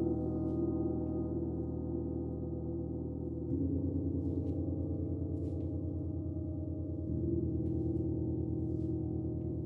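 Gong ringing with a long, shimmering sustained tone, swelling again with a fresh soft stroke about three and a half seconds in and once more about seven seconds in.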